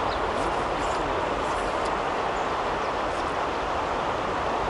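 Flowing river water rushing steadily, an even noise that does not rise or break.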